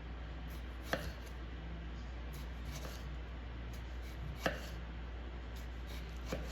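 Knife slicing tomatoes on a cutting board: three sharp knocks of the blade meeting the board, about a second in, halfway through and near the end, with fainter taps between.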